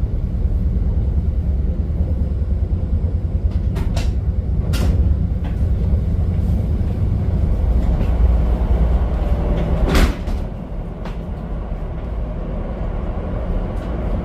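Steady low rumble of a train running along the track, heard from inside a passenger car, with a few sharp clacks about four and five seconds in and a louder one about ten seconds in, after which the rumble eases a little.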